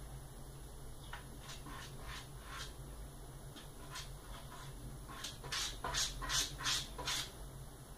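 Cat scratching with its paws at a toilet-training insert set in the toilet seat: a run of short scrapes, scattered at first, then quicker and louder near the end.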